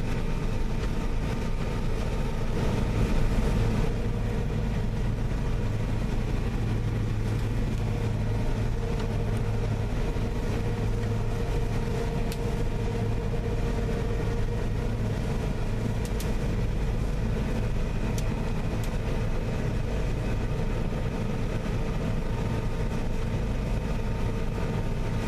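Combine harvester running steadily while harvesting soybeans, a constant engine and machinery drone with several steady tones.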